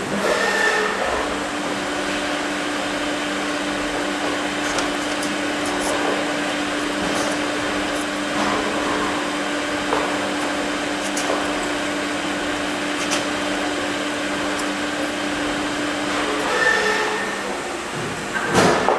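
Portable valve grinder running steadily while lapping the gasket seating face inside a pressure safety valve's bore, with a constant motor hum. The hum comes in about a second in and stops a couple of seconds before the end, with a few light ticks over it.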